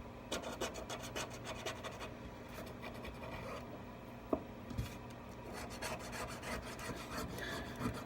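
Metal scraper tool scraping old screen adhesive off the inside edge of an iPad Pro 10.5 housing in many short, irregular strokes, with a sharper click about four seconds in.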